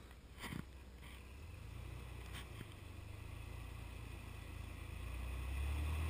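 Lifted Jeep Wrangler TJ's engine running low and steady as it crawls up a rock step on big mud tires, getting louder near the end as more throttle is given to climb the rock. A short knock about half a second in.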